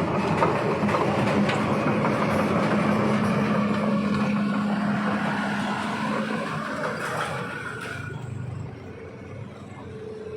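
A motor vehicle passing close by with its engine running, a steady engine note over the noise of its passing, then fading away over the last few seconds.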